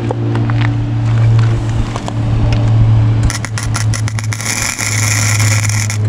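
Electric arc welding on a steel lawnmower deck. A steady low hum runs throughout; about three seconds in, sharp crackles and pops start, settling into a dense frying sizzle of the arc for the last second and a half.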